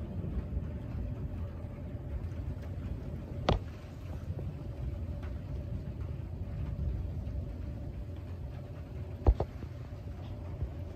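Steady low rumble of a distant thunderstorm with a faint steady hum under it. Two sharp clicks break it, one about three and a half seconds in and a louder one near the end.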